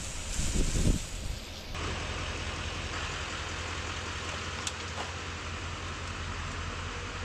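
A pressure washer jet spraying water against a truck for about the first two seconds. After an abrupt change, a GMC 3500 pickup engine runs steadily as the truck drives slowly forward.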